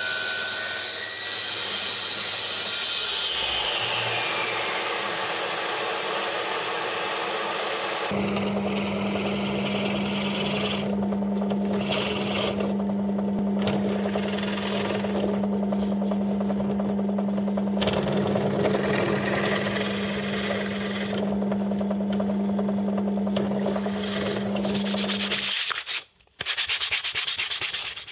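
Table saw cutting birch plywood, its blade whining down in pitch a few seconds in. Then a drill press motor hums steadily while a bit bores again and again into laminated birch ply, the cutting noise coming and going. The hum stops near the end and is followed by a brief fast rattle.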